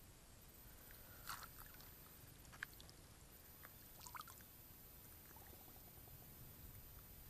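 Near silence with a few faint small water splashes and drips from a person standing in shallow water, about a second in and again around four seconds.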